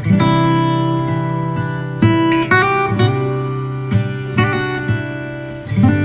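Background music: acoustic guitar strumming chords, with a new chord every second or two.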